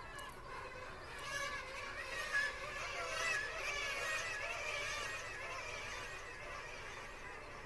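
A chorus of many overlapping animal calls, swelling about a second in and fading away after about five seconds.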